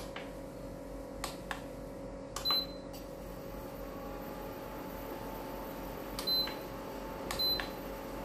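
Metal spoon clinking against a glass bowl of batter several times, short ticks, some with a brief bright ring, over a steady low hum.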